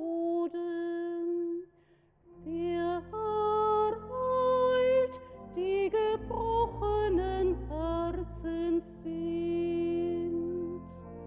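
A woman singing the responsorial psalm solo in long held notes. She breaks off briefly about two seconds in, and a low sustained instrumental accompaniment enters as she resumes, carrying on a moment after her voice stops near the end.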